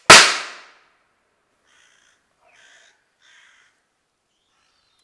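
A single loud bang that dies away over about half a second, then a bird calling three times in quick succession.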